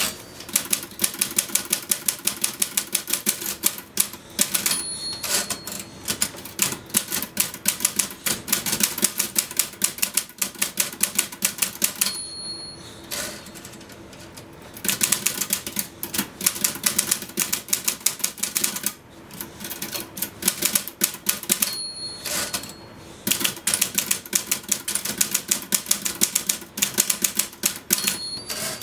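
Typewriter keys struck in rapid, frantic runs. The margin bell dings four times, each ding warning that the end of the line is near, and each is followed by a short break in the typing.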